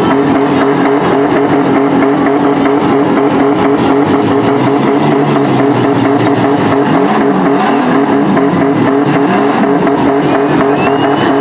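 Several demolition-derby mini trucks' engines running hard and revving, loud and continuous, their pitch rising and falling in the second half.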